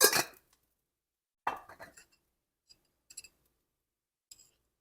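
Kitchenware clinking during cooking: four short, sharp clinks with a brief ring, the first two the loudest.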